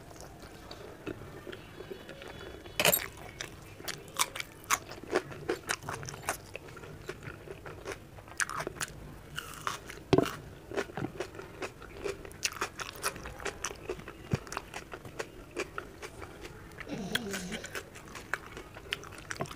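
A person chewing and biting food with many crisp crunches, the sharpest about three seconds in and about ten seconds in, as she bites into raw onion slices between mouthfuls of paratha and potato–capsicum sabzi.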